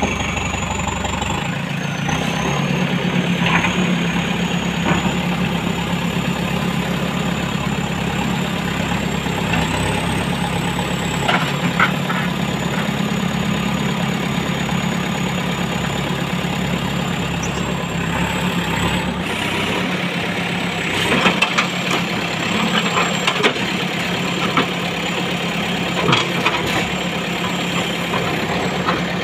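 JCB backhoe loader's diesel engine running steadily while the backhoe arm digs, with a faint high whine and occasional short knocks as the machine works.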